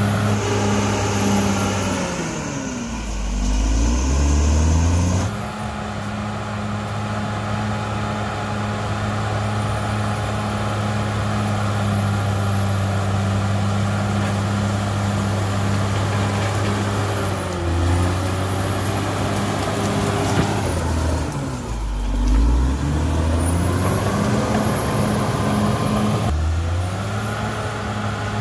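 Cat D6R XL bulldozer's diesel engine running at high revs with a thin high whine over it. The engine note sags sharply and climbs back about three seconds in, around eighteen and twenty-two seconds in, and again near the end.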